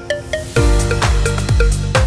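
Background electronic music: short plucked notes, then a heavy bass beat comes in about half a second in, with low thumps about twice a second.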